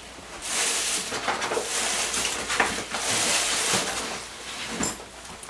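Close-miked rustling and handling noise as a textbook is brought out, with a few soft knocks.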